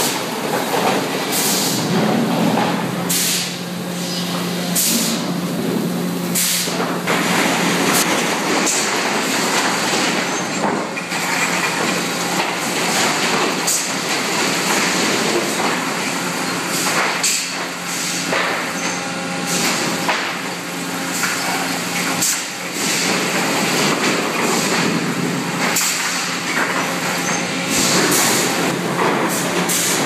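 Hardwood sawmill machinery running: chain conveyors and rollers carrying sawn boards, a steady hum under frequent, irregular clattering knocks.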